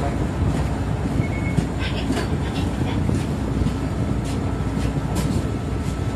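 City bus engine idling while the bus stands still, heard from inside the cabin as a steady low rumble, with a few faint, irregular clicks.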